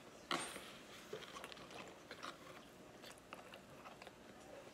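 Faint chewing and mouth sounds of children eating mac and cheese, with small scattered clicks and one sharper click about a third of a second in.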